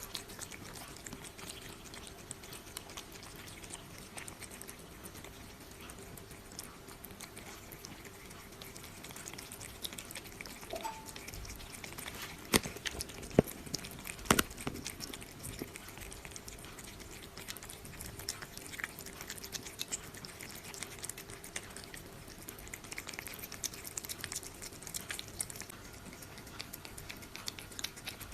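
A cat eating canned wet food, with steady wet chewing, licking and small clicks of its mouth. About halfway through come three sharp, louder clicks close together.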